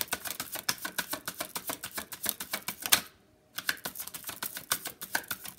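A deck of tarot cards being shuffled by hand: a fast, uneven run of card clicks and slaps. The sound cuts out for a moment a little past halfway, then the shuffling goes on.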